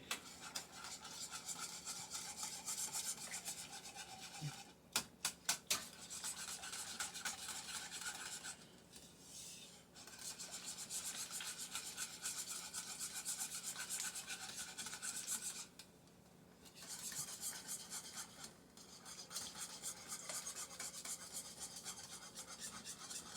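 A utensil stirring and scraping around a pot of thickening Alfredo sauce as softened cream cheese is worked in: a continuous rasping rub with brief pauses about nine and sixteen seconds in, and a few quick taps about five seconds in.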